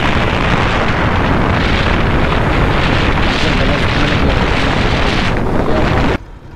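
Heavy crackling wind noise on a helmet-mounted microphone while riding a two-wheeler at about 80–85 km/h, the wind coming in through the open helmet visor. It cuts off suddenly near the end.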